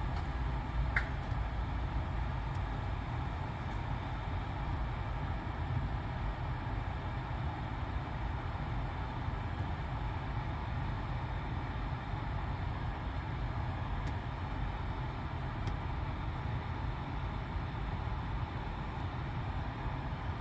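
Steady low rumble and hiss inside a BMW X5 E53's cabin, with no music or other audio playing.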